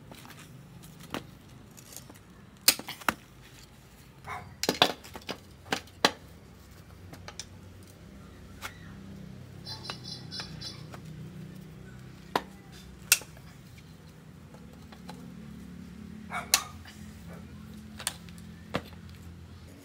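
Irregular sharp clicks and knocks of metal parts and hand tools being handled, over a low steady hum. There are about fifteen of them, several in quick clusters.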